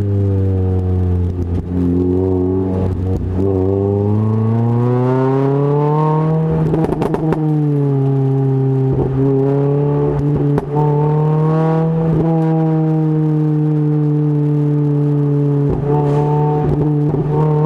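Renault Clio RS 200 engine through a Supersprint aftermarket exhaust, driven hard: the engine note drops off, climbs steadily under acceleration, then holds high with brief dips. Short clicks and crackles come from the exhaust at several points, mostly where the revs fall.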